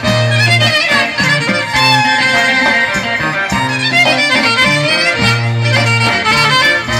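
Greek traditional dance music: a violin leading the tune over accordion and a bass line moving in held notes, with a steady beat.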